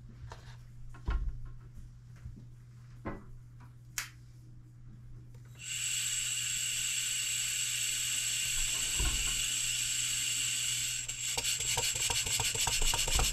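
A few faint clicks, then about five and a half seconds in a sudden steady hiss of compressed air as air is fed to a Stuart model beam engine. About 11 s in, the engine starts turning over on the air with a rapid, even ticking.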